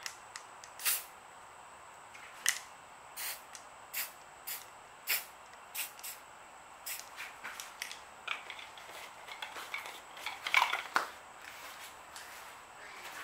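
Aerosol spray-paint can let off in short hissing puffs, one every half second or so. Near eleven seconds in there is a louder clatter of handling.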